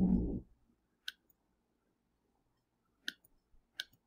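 Computer mouse clicking: three sharp single clicks, one about a second in and two near the end. A short hum of a voice comes at the very start.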